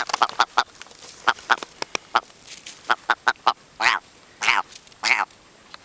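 Red grouse calling: a run of short, clipped cackling notes, then three longer drawn-out calls about four, four and a half and five seconds in.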